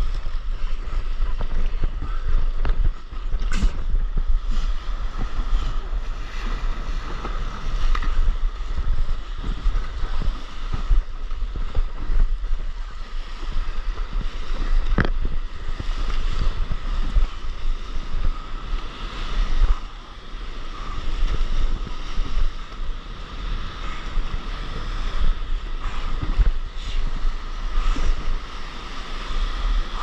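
Wind buffeting a board-mounted action camera's microphone over sea water sloshing and splashing around a stand-up paddleboard as it is paddled through surf, with scattered sharp splashes from paddle strokes and breaking waves.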